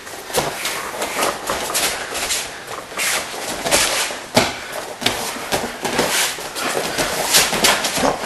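Grappling on a mat: irregular thuds, scuffs and shuffling of bodies and limbs against the mat.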